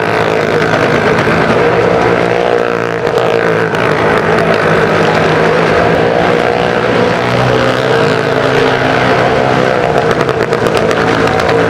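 Motorcycle and small car engines running together at steady high revs as they circle the vertical wooden wall of a well-of-death pit.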